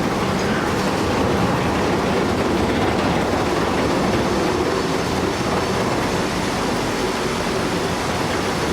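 Heavy construction machinery working: a steady, loud rumble of diesel engine and running gear, with no breaks or sudden knocks.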